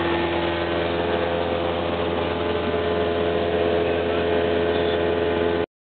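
Cessna 172's piston engine and propeller droning steadily, heard inside the cabin in flight. The sound cuts off suddenly near the end.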